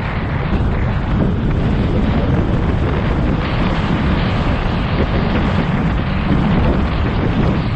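Wind buffeting a helmet-mounted camera's microphone as the rider moves along on an electric scooter: a loud, steady rush concentrated in the low end.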